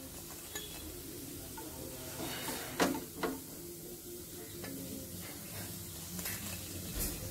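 Hot oil sizzling as fried banana balls are lifted out with a slotted metal skimmer, with a few clinks and scrapes of utensils against the pan and dish, the loudest just under three seconds in.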